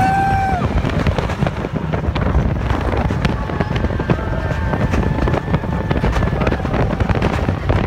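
Steel roller coaster train running along the track, heard from a seat on board: a steady rumble and dense rattling of the wheels, with wind buffeting the microphone. A rider's short high call comes right at the start.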